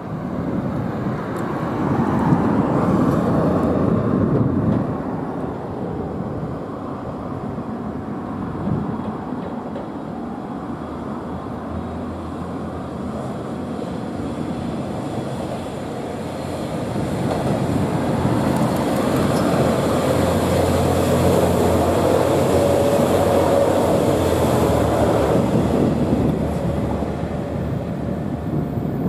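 JR Shikoku 1000 series three-car diesel railcar approaching and passing close by, with its diesel engines running and its wheels running on the rails. It is loudest about twenty seconds in and eases off near the end. There is an earlier swell of noise a few seconds in.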